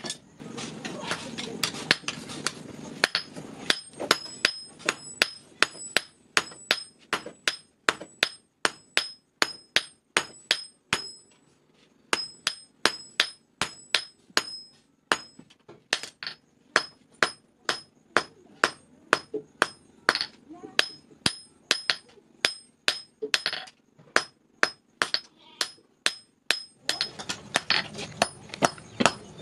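Blacksmith's hand hammer forging a red-hot steel knife blade on an anvil block: a steady run of blows, about two to three a second, each with a high metallic ring, pausing briefly about eleven seconds in. A rushing noise sits under the blows for the first few seconds and again near the end.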